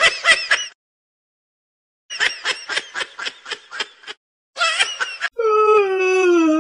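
High-pitched cartoonish laughing, the laughing-kitten meme sound effect, in three bursts of quick pulses. About five seconds in, a long drawn-out vocal call starts and slowly falls in pitch.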